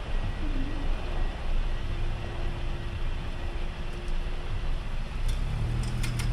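Road traffic at a level crossing: the engines of queued cars running with a steady rumble. A low engine note rises near the end as the vehicles start to move off.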